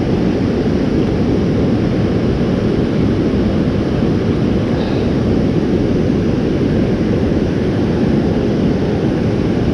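Steady, loud rush of fast-running creek water close by, even and unbroken.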